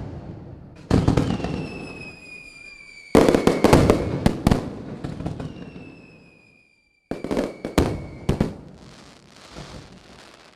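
Fireworks going off: groups of sharp bangs with crackling tails about a second in, three seconds in and seven seconds in, with high whistles falling slowly in pitch between them.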